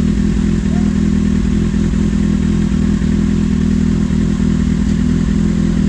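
Kawasaki Z800 inline-four motorcycle engine running at a steady speed, its pitch holding level.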